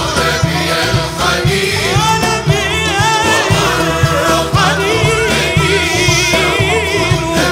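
Arabic Islamic devotional song (inshad) performed live: a male solo voice sings long ornamented lines with vibrato over frame drums, a large daf and riq tambourines, beating a steady rhythm.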